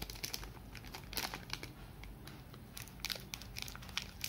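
Thin clear plastic bag crinkling in the hands as it is cut open with scissors, in irregular short crackles.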